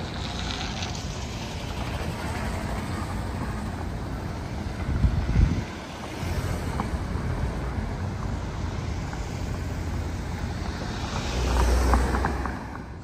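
Wind buffeting the microphone over outdoor traffic noise, with a strong gust about five seconds in and a louder swell near the end.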